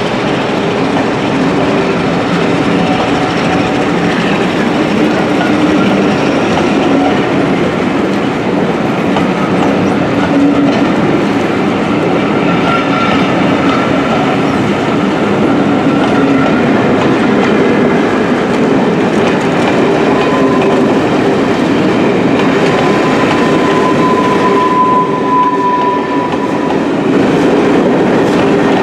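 A train running on the rails: a steady, loud rolling noise with clickety-clack, and a thin high squeal in the later part.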